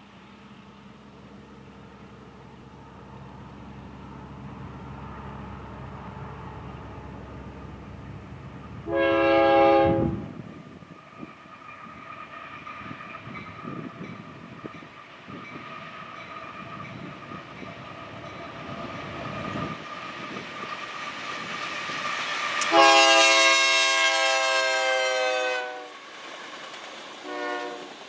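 Union Pacific freight train's locomotive air horn sounding a chord of several notes: a short blast about nine seconds in, a long blast of about three seconds later on, and a short toot near the end. Under it, the rumble of the approaching train and its autorack cars grows louder.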